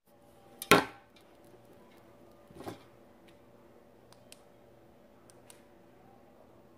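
Handling noise from a phone being set up to film: a loud short bump and rustle under a second in, a softer one near three seconds, then a few faint clicks, over a low steady room hum.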